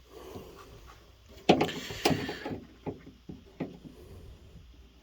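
Rubber window gasket being worked by hand down into a truck door's window channel: scattered knocks, scrapes and rubbing, the loudest two about one and a half and two seconds in.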